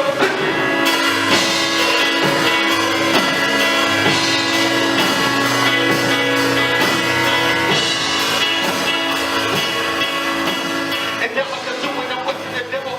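Instrumental music with drums and sustained chords, thinning out and getting quieter near the end.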